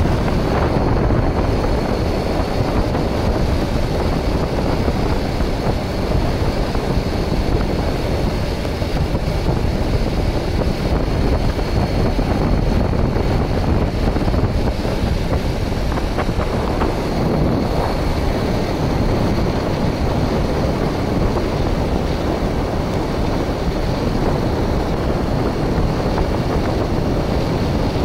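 Motorcycle riding in the rain: steady wind rush over the microphone, with the bike's engine and tyre noise on the wet road underneath.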